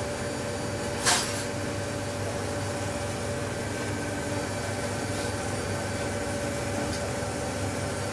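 Steady machine hum holding a few constant tones, with one sharp knock about a second in.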